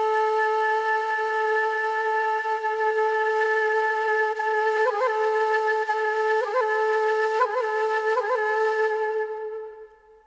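Solo flute holding one long, steady note, with four short ornamental turns in its second half, then fading out near the end.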